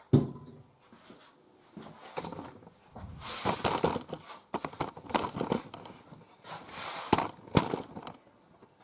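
Handling noise from a camera being picked up and moved: irregular knocks, clicks and rustling, with a sharper knock right at the start.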